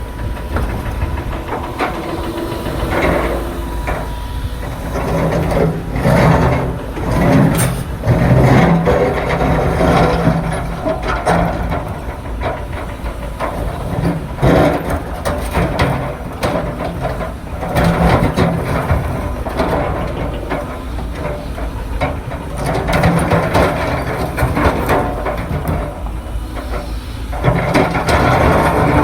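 Large excavator's diesel engine running, swelling and easing in surges, with irregular knocks and clatter throughout.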